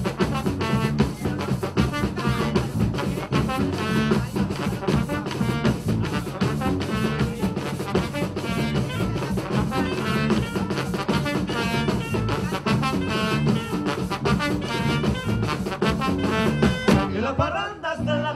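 Live band playing an instrumental Colombian fandango, with brass, hand drums and bass over a steady dance beat. Near the end the music drops out briefly before coming back in.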